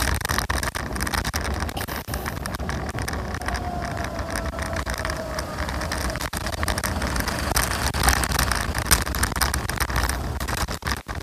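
Riding noise from a scooter: wind buffeting the microphone and road rumble, with frequent small knocks and rattles over the road surface. A faint whine drifts slightly down in pitch a few seconds in.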